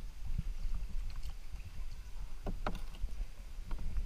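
Kayak paddling: paddle blades splashing and dripping in calm water with a few light knocks, the most prominent a little past halfway, over a steady low rumble.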